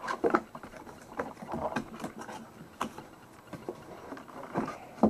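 Cardboard box and its packing being handled: irregular scraping and rustling with a few sharp knocks as a large CPU tower cooler is worked out of the box.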